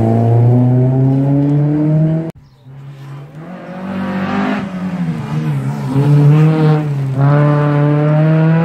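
Stage rally cars at full throttle. A Ford Sierra's engine climbs steadily in pitch as it accelerates away. After an abrupt break about two seconds in, a second rally car approaches, its engine note falling and wavering as it slows for the corner, then rising again as it accelerates away.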